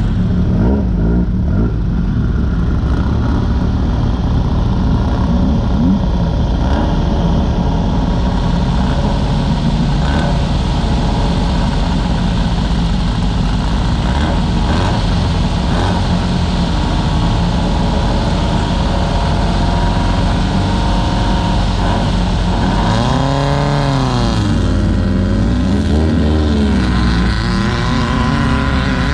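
VW air-cooled engine of a Class 9 off-road race buggy running hard at speed, heard from inside the car, with occasional knocks over the course. About 23 seconds in the revs rise and fall briefly.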